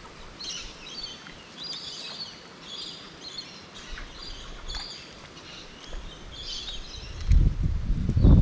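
Birds calling over and over in short chirping phrases. A loud low rumble comes in near the end and drowns them out.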